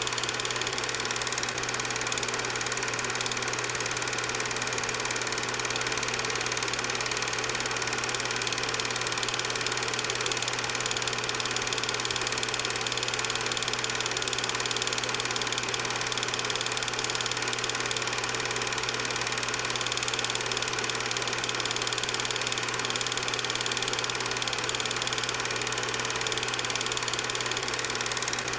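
8mm film projector running steadily: a constant mechanical hum with a strong low drone.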